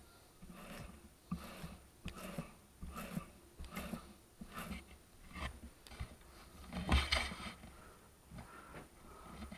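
A paint roller rolled back and forth in a paint tray to load it with paint. It makes a repeated wet rolling, rubbing sound about once every second, with a louder stroke about seven seconds in.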